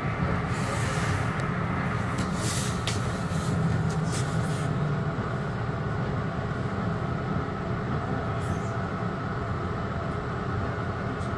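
Metro-North commuter train running along the track: a steady low rumble of wheels on rails, with a few brief high hissing bursts in the first few seconds.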